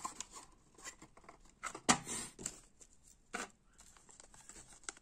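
Small plastic packaging being handled: a clear plastic bag crinkling and a plastic box clicking as fingerboard trucks are taken out. A sharp snap about two seconds in is the loudest sound, with a second click near three and a half seconds.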